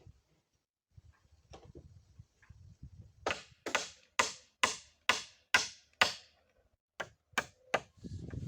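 A hand tool striking repeatedly at a steady pace: eight sharp blows about two a second, each with a short ringing tail, then after a brief pause three more. Softer low rustling and handling come before the blows.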